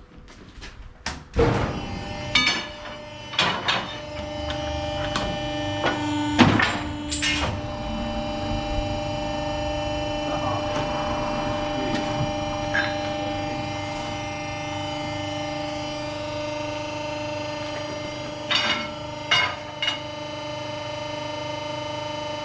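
Sharp metal clanks and knocks as steel stock is handled, over the steady hum of a metal-cutting machine's electric motor that starts up about four seconds in and keeps running; a few more knocks come near the end.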